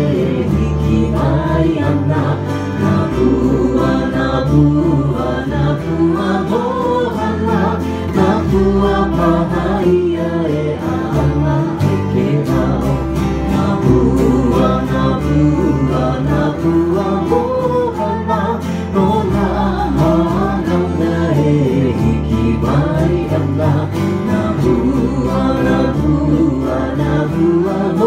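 Live Hawaiian band playing a song for hula: strummed acoustic guitars and ukuleles over steady bass notes, with singing.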